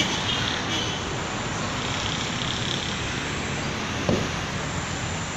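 Steady rushing outdoor background noise, with a sharp knock about four seconds in and another at the end.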